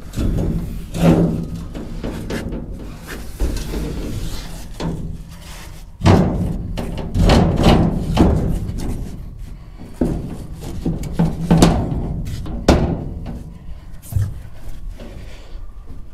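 Irregular metal clanks and thunks as a cut steel strip is worked and knocked into place against the floor and side wall of a steel dump body, heaviest in a run of knocks midway through.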